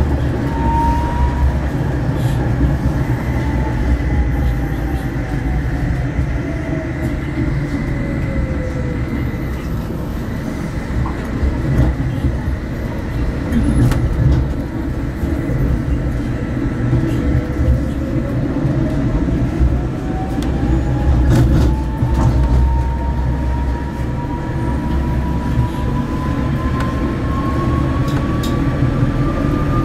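Electric tram heard from the driver's cab: a steady low rumble of wheels on rails under a single electric motor whine that falls in pitch as the tram slows over the first third, then rises steadily through the second half as it accelerates again.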